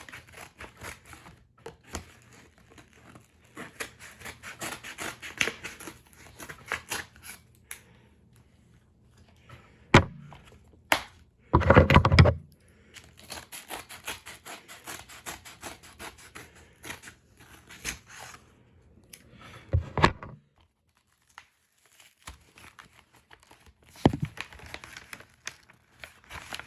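A mailed package being opened by hand: packaging scratching, tearing and crinkling, with one loud rip about twelve seconds in and a few sharp knocks as the package is handled.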